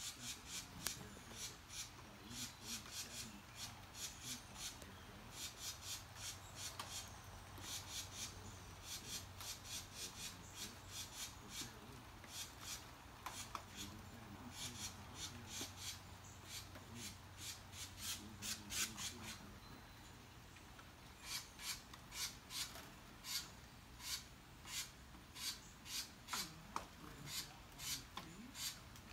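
Carolina wrens squawking: runs of harsh, rasping scold notes, several a second, with a short lull about two-thirds through. They are alarm-scolding a person close to their nest of young.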